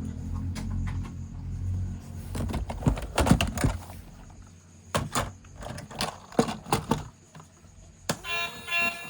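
Plastic toy vehicles being handled: a low rumble, then a string of sharp clicks and knocks. About eight seconds in, a toy's electronic alarm-like siren sound starts.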